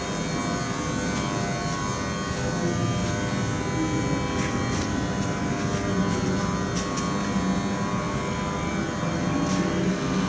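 Steady mechanical drone with a low hum and several steady tones, with a few faint clicks.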